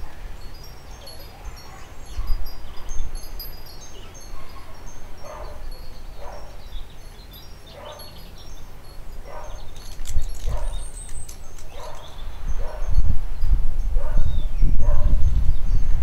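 Cavalier King Charles Spaniel puppies giving short yips about once a second from about a third of the way in, over a light tinkling of wind chimes. Wind buffets the microphone with a low rumble, strongest near the end.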